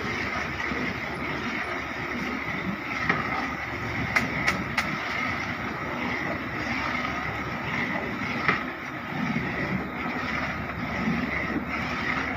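A wooden paddle stirring thick kurma gravy in a large metal cooking pot over a steady rushing background noise, with a few sharp clicks as the paddle knocks against the pot.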